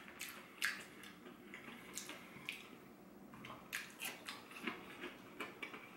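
Quiet chewing and crunching of battered fried chicken: a scattering of short, sharp crisp clicks over soft wet mouth sounds.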